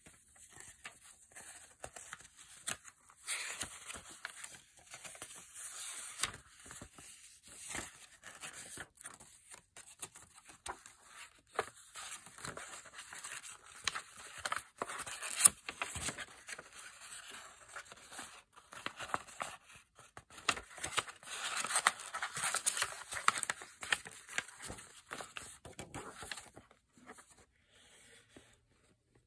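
Paper pages of an altered Reader's Digest hardback junk journal being flipped and handled, rustling and crinkling in irregular bursts, with a single sharp snap about halfway through. The rustling is busiest a little past the middle and dies down near the end.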